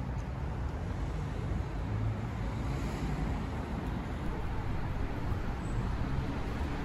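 Steady road traffic noise from cars on a city boulevard, a low, even hum with no single vehicle standing out.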